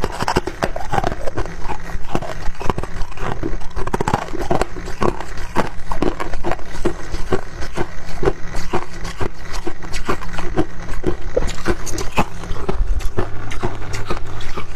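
Refrozen freezer frost being bitten and chewed close to the microphone: a dense, irregular run of crisp crunches, with a low steady hum underneath.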